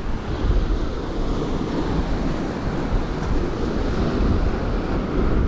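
Surf breaking and washing over the rocks of a jetty, with wind buffeting the microphone in an uneven low rumble.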